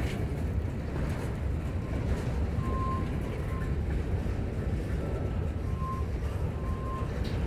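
Freight cars rolling slowly past: a steady rumble of steel wheels on the rail, with a few short, faint squeals.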